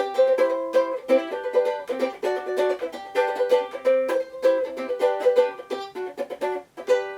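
Background music: a quick melody of short plucked-string notes in rapid succession.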